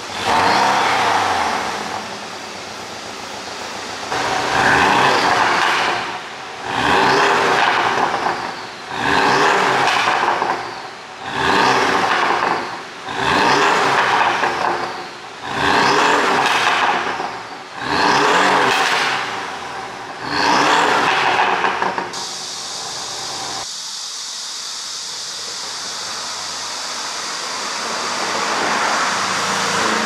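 Porsche 718 Boxster GTS 2.5-litre turbocharged flat-four on the stock ECU, free-revved about nine times in a row, each blip rising and falling about two seconds apart. After about 22 seconds the revving gives way to steadier road noise that swells near the end as a car approaches.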